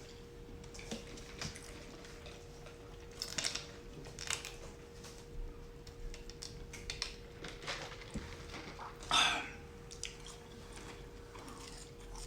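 Close-up eating of a crispy fried chicken sandwich: irregular chewing and biting crunches and mouth sounds, with a louder crunch about nine seconds in.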